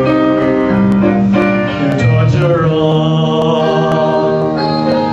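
A young man singing into a microphone over a piano or keyboard accompaniment.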